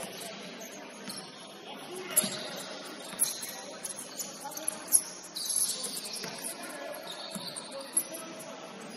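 Basketball game on a hardwood court: sneakers squeaking in short, high chirps as players cut and stop, with several sharp thumps of the ball bouncing, the loudest about five seconds in.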